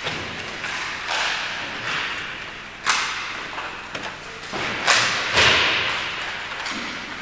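A series of sharp thuds or smacks, about five, each trailing off over about a second with the echo of a large hall.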